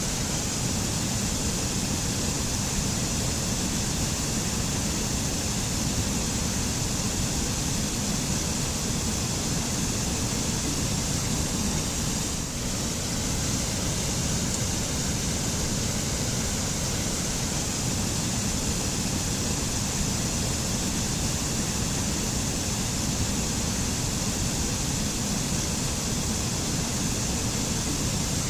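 Waterfall: falling water rushing steadily, with a deep low rumble and a bright hiss, scarcely changing, apart from a slight brief dip about halfway through.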